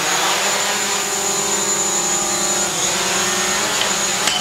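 DJI Mavic Pro quadcopter's four motors and propellers running as it lifts off and hovers, a steady pitched hum. The pitch dips briefly about three seconds in.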